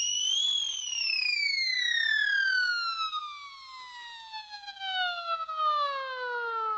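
Cartoon falling-whistle sound effect: a single whistled tone that rises briefly, then slides slowly and steadily down in pitch for several seconds.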